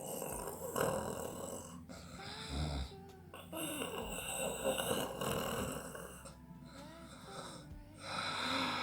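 A woman snoring in her sleep, a rasping snore on each slow breath, several breaths a couple of seconds long with a longer pause before the last one.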